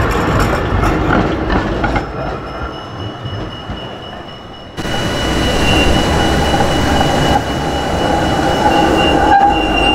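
Vintage yellow RET articulated trams running past on the rails: a steady rumble of wheels and car bodies, with a thin, steady wheel squeal over it on the curve. The sound drops to a quieter, more distant rumble from about two seconds in and comes back louder about five seconds in.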